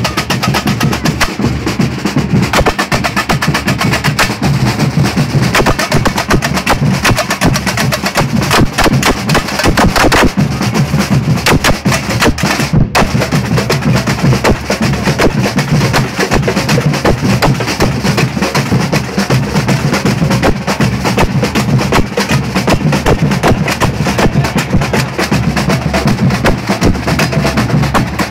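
Samba percussion band (batucada) playing continuously and loudly: snare drums and small hand drums rattling over a steady low drum beat.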